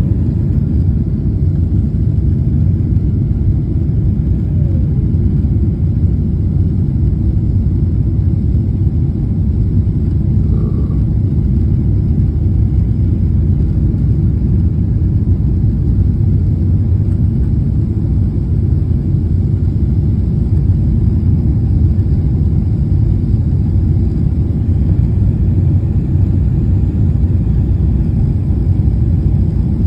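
Steady low rumble inside a jet airliner's cabin during the landing approach: engine and airflow noise. A faint tone drops away about four to five seconds in.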